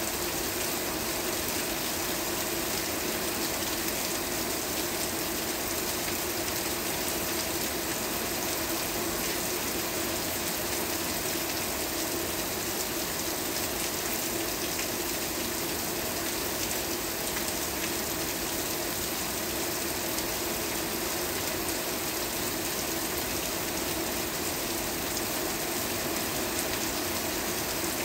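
Steady rain, many fine drops pattering evenly without let-up.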